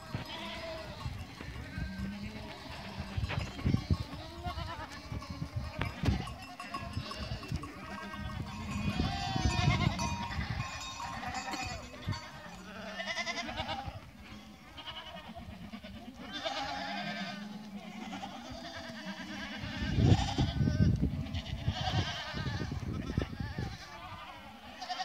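A large herd of goats and kids bleating, with many overlapping calls at different pitches throughout. These are typical of kids and nannies calling for each other at suckling time, when some kids are still looking for their mothers.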